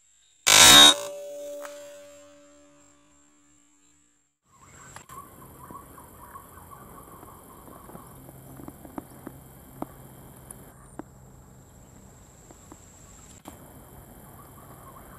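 A single loud air-rifle shot about half a second in, with a ringing tail fading over about three seconds. After a short hush, steady insect chirring with a wavering buzz and faint scattered ticks sets in.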